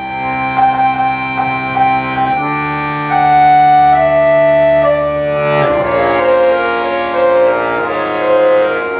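Accordion quartet playing: sustained chords under a melody line that steps downward, the harmony changing every second or two.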